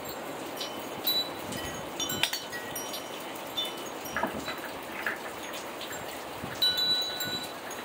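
Wind chimes ringing irregularly in the wind, a scatter of clear high tones with a few louder strikes, over a steady hiss of rain.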